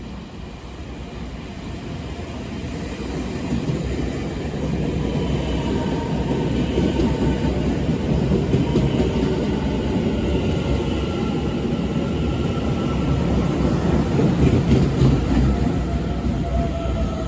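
A train's heavy rumble grows louder over the first few seconds and then stays loud, with faint whining tones that slowly fall in pitch.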